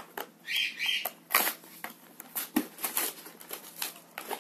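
A cardboard Kinder Surprise three-pack box being torn open by hand, with irregular tearing, rustling and sharp crackles of the card.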